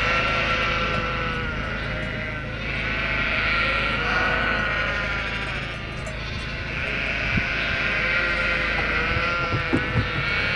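A large flock of sheep bleating, with many overlapping calls and no break, plus a few short knocks near the end.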